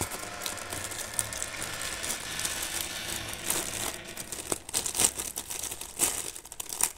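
Plastic courier mailer bag crinkling and rustling as hands pull it open, with irregular sharp crackles.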